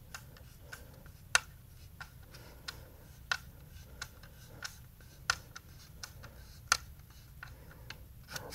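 Scattered light clicks and taps from a small 3D-printed plastic case and its parts being handled on a desk, about ten irregular clicks, the sharpest about a second, three, five and nearly seven seconds in.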